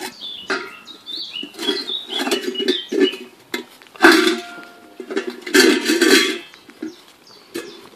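Stainless steel puppy feeding saucer clinking, clattering and scraping on brick paving as Grand Basset Griffon Vendéen puppies lick it and push it around, with louder clatters about four and six seconds in. High puppy squeaks sound in the first few seconds.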